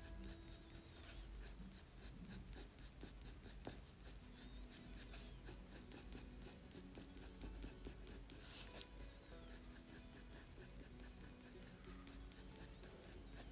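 Faint scratching of a coloured pencil on paper in quick short strokes, several a second, as fine hair lines are flicked in.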